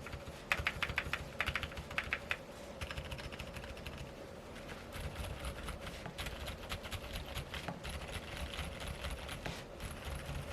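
Typing on a Keychron Q2 mechanical keyboard with TTC Silent Bluish White 45g switches on a steel plate, under GMK keycaps: muted, soft keystrokes. Short quick bursts of keys in the first couple of seconds give way to a steady run of quieter typing.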